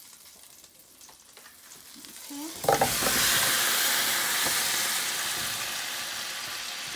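Frozen, peeled tomatoes hitting hot melted butter in a sauté pan: a sudden loud burst of sizzling about two and a half seconds in, which slowly dies down as the cold tomatoes cool the fat.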